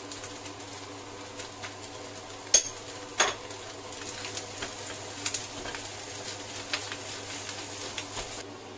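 Fried rice being stir-fried in a wok: a metal spatula scraping and tapping against the pan as the rice is turned, over a light sizzle. There are two sharp clanks of the spatula on the wok, about two and a half and three seconds in.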